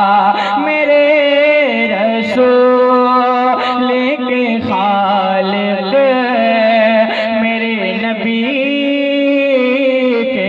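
Male voice singing a naat in long, drawn-out melismatic notes that glide up and down, over a steady low drone.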